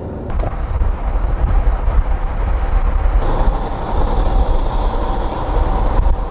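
Steady low rumble of a vehicle on the move, with a high hiss joining in about three seconds in.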